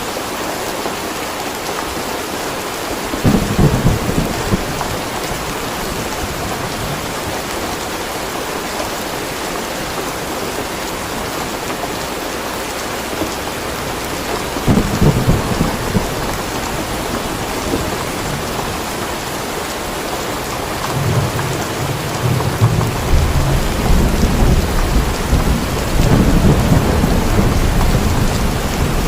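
Steady heavy rain with thunder rumbling: two short rumbles about 3 and 15 seconds in, then a longer, louder one building from about 21 seconds to the end.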